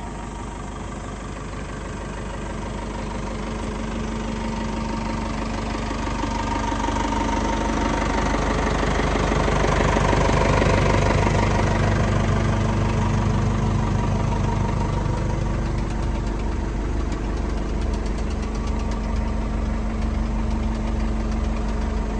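Diesel engine of a CAT 420D backhoe loader running. It grows louder over the first ten seconds, then runs steadily.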